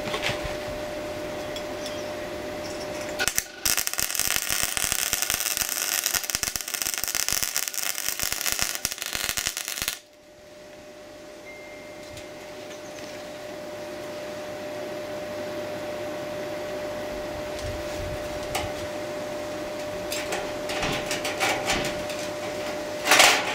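MIG welder's arc crackling as a tack weld is laid on steel square tube. It starts about three seconds in with a short blip, then runs for about seven seconds and cuts off suddenly. A steady hum carries on underneath, and there is a brief loud noise near the end.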